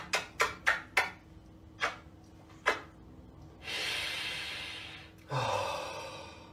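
A man kissing a cat's head: a quick run of about seven lip smacks in the first three seconds. Then a long breathy exhale that fades, and a short voiced gasp near the end.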